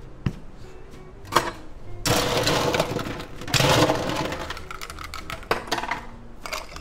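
Ice cubes being scooped from an ice bin into a mixing glass: a clattering rattle of ice lasting a couple of seconds, starting about two seconds in, with a few sharp clinks before and after.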